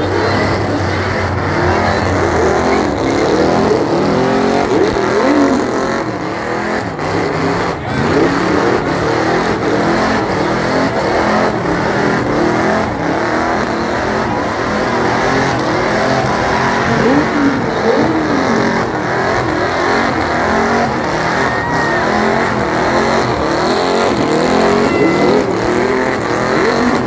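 Car engine held at high revs during a burnout, its pitch swinging up and down over and over as the driven tires spin and squeal on pavement.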